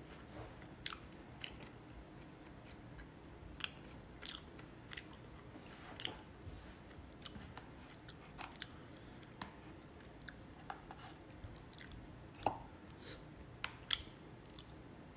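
A person eating with wooden chopsticks from a disposable cup: chewing, with scattered small clicks and taps of the chopsticks against the cup, the loudest near the end, over a faint steady room hum.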